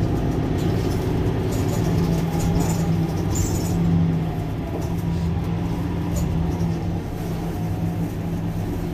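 Mercedes-Benz Citaro C2 hybrid city bus standing with its engine idling: a steady low hum.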